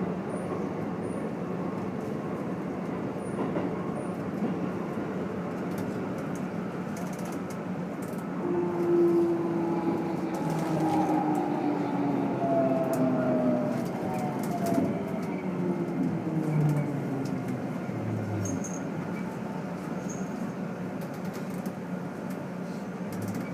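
Interior running sound of a Keikyu N1000 train's MB-5121-A traction motors under a Toyo IGBT VVVF inverter: a steady rumble with, from about eight seconds in, whine tones that slide down in pitch. A few short knocks near the end. This set is known for an unusually loud, abnormal motor noise.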